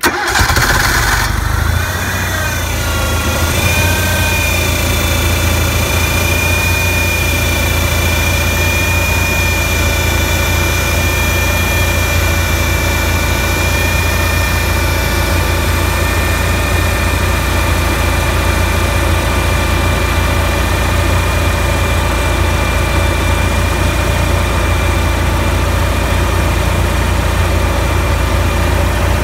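Generator engine coming up to speed just after a cold start in near-freezing weather, then running steadily. A high whine wavers in pitch for the first few seconds, then holds steady over a constant low rumble.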